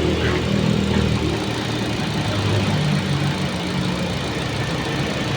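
Hyundai Accent's engine idling steadily.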